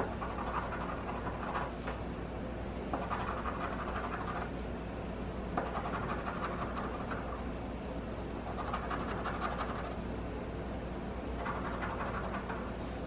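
Scratching off a lottery scratch ticket with a coin or fingernail: repeated strokes of dry scratching in runs of a second or two with short pauses between them.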